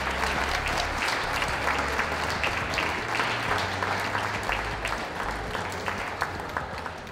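Audience applauding, a dense patter of many hands clapping that slowly dies away towards the end.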